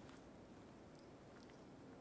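Near silence: faint room tone with a few faint ticks.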